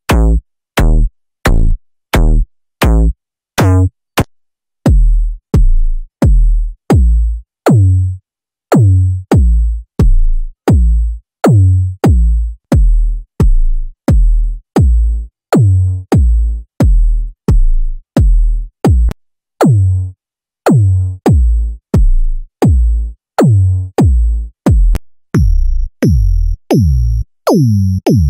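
Synthesized EDM kick drums from the Infected Sounds KickOne kick synthesizer, played as a steady run of single hits at about one and a half a second. Each hit is a sharp click that drops fast in pitch into a deep bass thump. The kick's character changes as presets are switched, with a brief gap about four seconds in and a higher ringing click on each hit near the end.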